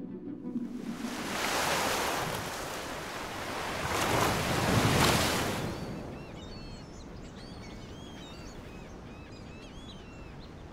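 Sea waves washing in twice, the second about four seconds in and the louder, then settling into a low steady wash of surf with many short, high bird chirps over it.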